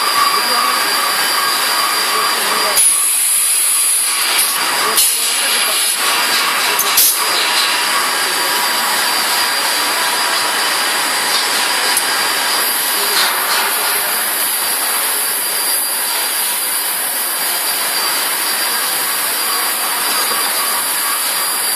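Extrusion blow moulding machine running, a steady loud rushing noise with a few faint steady tones, broken by some brief dips and clicks in the first few seconds.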